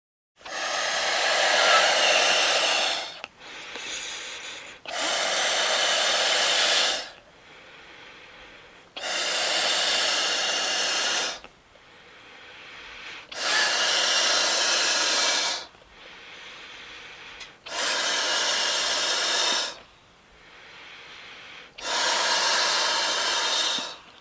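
Slow, heavy breathing close to the microphone: six loud, airy breaths of two to three seconds each, alternating with softer, shorter ones in an even rhythm.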